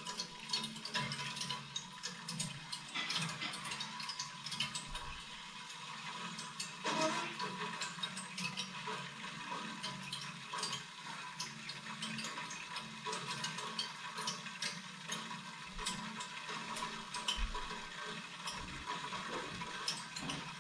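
Water flowing back into a hot-water boiler's newly repiped copper loop and air separator after the valves are opened: a steady hiss with many small crackling clicks as air is pushed out of the system.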